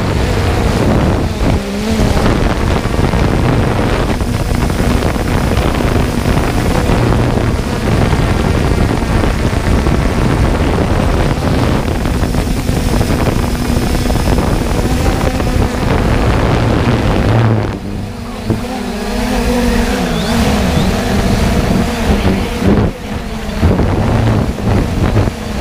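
3DR Solo quadcopter's brushless motors and propellers running in flight, heard from the drone's own camera: a steady hum under heavy rushing wind noise from the propeller wash, with a brief drop in level about 18 seconds in.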